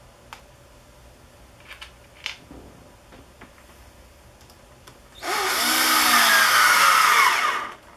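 A cordless drill/driver drives a screw into 3/4-inch birch plywood in one run of about two and a half seconds, starting about five seconds in. Its pitch wavers as the screw goes in, then it cuts off suddenly. A few light clicks come before it as the screw is set in place.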